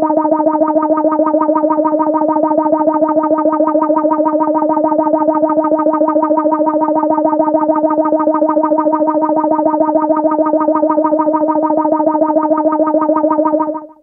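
Synthesized electronic alarm tone: a steady low tone with a rapid, even pulsing over it. It runs unchanged, then drops away quickly just before the end.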